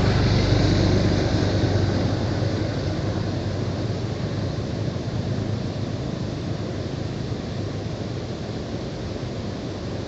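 Steady rushing noise of a waterfall pouring onto rock. A deeper vehicle rumble from the nearby road fades away over the first couple of seconds.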